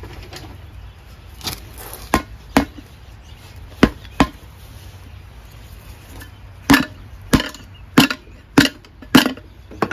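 About ten sharp knocks at uneven intervals, with a faster run of five in the last few seconds. These are hand tools striking an ATV wheel and tire while the tire is being worked off the rim, without success.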